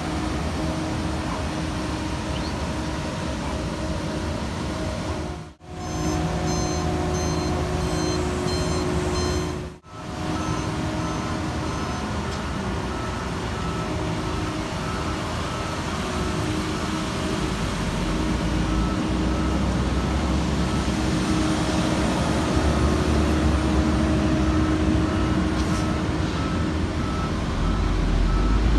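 Heavy road-construction machinery running steadily, with a reversing alarm beeping about twice a second for a few seconds. The sound drops out briefly twice.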